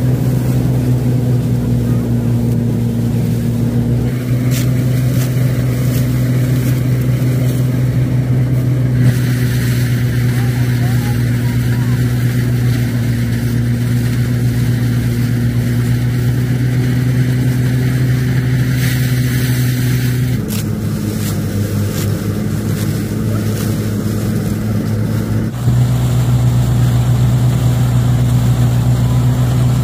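A small engine runs steadily, holding one low pitch throughout, its tone shifting slightly a few times.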